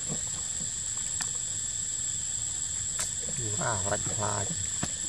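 Steady, high-pitched drone of insects in the surrounding forest, with a few sharp clicks scattered through it.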